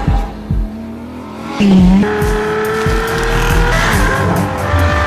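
A sports car's engine revving, its note held and slowly rising, over background music. There is a brief quieter stretch near the start.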